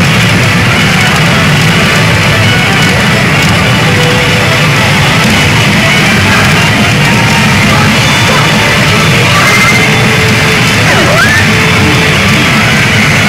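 Loud music and sound effects from a Mizuho Midori Don Hanabi DE Buongiorno pachinko machine, dense and steady throughout, with a brief sweeping effect about eleven seconds in.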